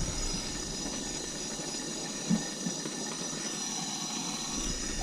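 Soldering torch burning with a steady hiss while a sweated water-line joint is soldered, with one light tap about two seconds in.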